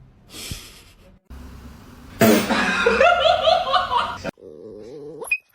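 A person laughing in short repeated bursts, the loudest part of a few seconds of clips joined with abrupt cuts.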